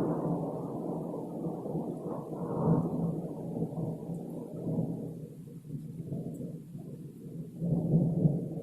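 Thunder rolling in a long low rumble, easing off in the middle and swelling again near the end. It is the thunder of a thunderstorm, not explosions.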